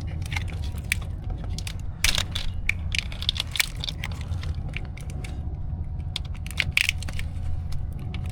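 Engine wiring harnesses and their plastic connectors being handled and pulled about, giving irregular clicks, rattles and rustles over a steady low hum.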